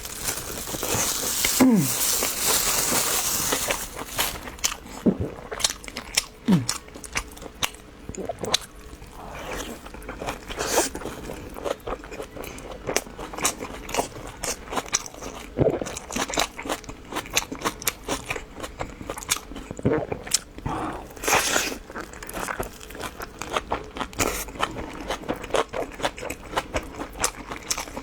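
Close-miked eating: crunchy bites and chewing, many short crisp crunches scattered throughout. A hissing rustle fills the first few seconds.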